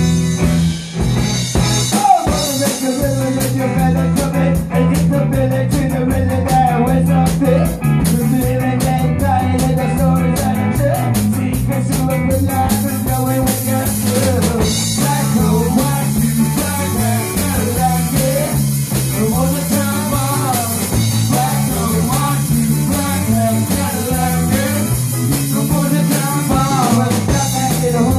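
A live rock band jamming loudly: electric guitars over a drum kit keeping a steady beat, with a bending lead guitar line on top.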